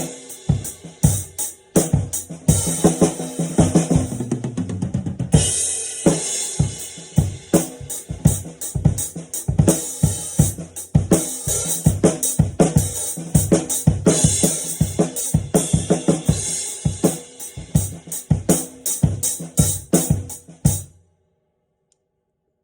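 Acoustic drum kit played in a studio sound check: kick drum, snare and hi-hat in a steady groove with cymbal crashes and fills, then stopping abruptly near the end.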